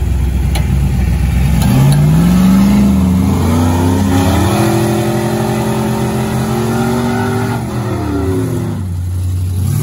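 Pickup truck engine accelerating away: the revs climb about two seconds in, step up through a couple of gear changes, hold high, then wind down near the end.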